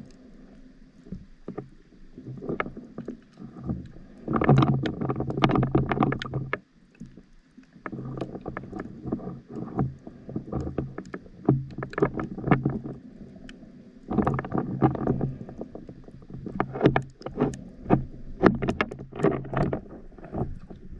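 Underwater sound from a diver's handheld camera: exhaled regulator bubbles rumbling in two long bursts, about four and fourteen seconds in, over a steady low hum, with sharp clicks and crackles scattered throughout.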